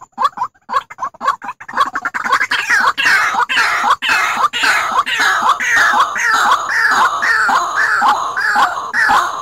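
White-breasted waterhen (ruak-ruak) calls played as a bird-trapping lure. Short calls at first, then from about two seconds in a loud, fast run of calls, about two a second, each sliding down in pitch.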